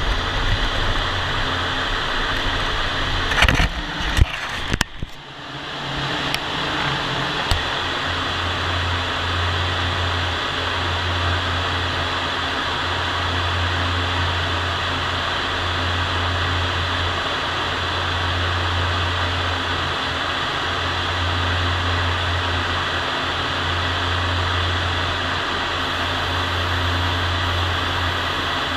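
Paint spray booth's ventilation fans drawing air, a steady loud rushing noise. A few sharp knocks come about four seconds in, and a low hum swells and fades every couple of seconds from about eight seconds in.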